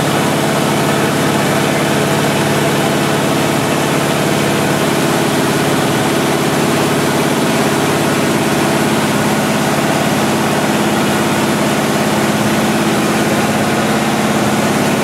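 A newly installed GM Performance HO 350 small-block V8 with a Holley 670 cfm double-pumper carburetor idles steadily on its first run, with the carburetor still being tuned. The idle shifts slightly about five seconds in.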